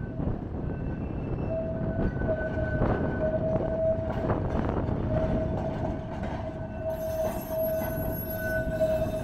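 Blackpool heritage tram running, with a steady high whine that sets in about a second and a half in, over heavy wind rumble on the microphone.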